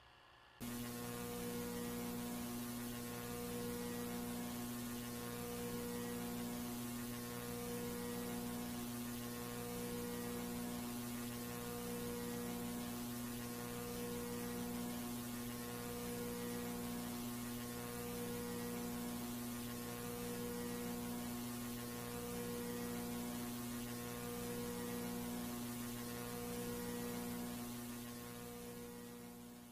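Steady electrical hum with hiss, starting suddenly just after the start, with a lower and a higher tone pulsing on and off about every two seconds; it fades out near the end.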